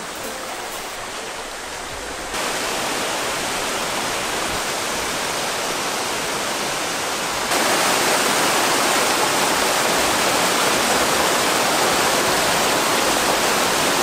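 Thin waterfalls splashing down a rock face into a shallow, rocky stream: a steady rush of water that gets louder about two seconds in and again about halfway through.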